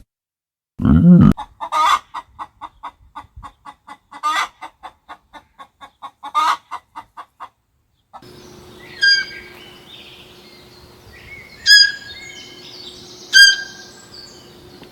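A low grunt about a second in, then a rapid run of short clucking notes, several a second with a few louder ones, for about six seconds. After a short gap come three loud, separate bird calls over a steady low hum.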